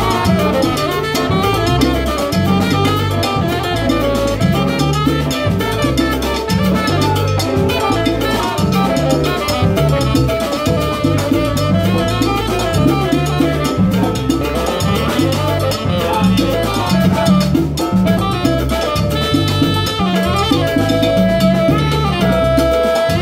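Live salsa band playing an instrumental stretch without singing: a steady bass and percussion groove under horn lines, with long held notes near the end.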